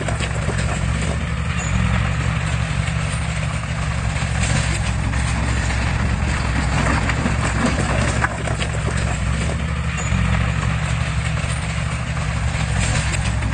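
Komatsu bulldozer's diesel engine running steadily under load, with a continuous metallic clatter from its crawler tracks.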